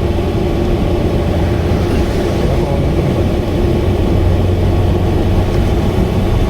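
Subaru Vivio KK3's four-cylinder engine holding a steady drone under way, loud from a leaking exhaust.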